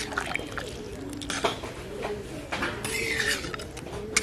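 Metal spatula stirring watery curry in an iron karahi, with scraping clicks against the pan, over a dove cooing repeatedly in the background.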